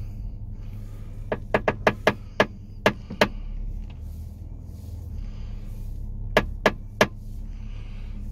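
Mercedes-Benz E-Class W212 panoramic sunroof clicking at its front support as the body twists through a turn, sharp popcorn-like clicks: a quick run of about eight, then three more near the end, over a steady low cabin rumble. The clicking is the sunroof noise fault the car came in with.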